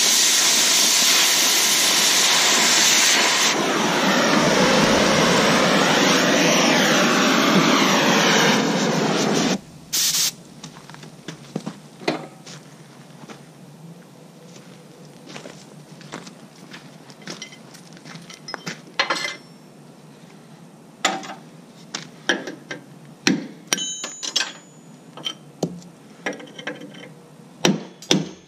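Oxy-fuel cutting torch hissing loudly as it cuts through the hitch's steel bolts, stopping suddenly about a third of the way in, with one short burst of hiss just after. Then irregular sharp metal knocks and clinks, some ringing, as a hammer strikes the steel hitch and bolts.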